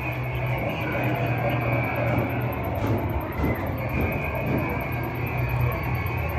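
A steady low droning rumble with a constant hum and hiss, unbroken and without distinct events.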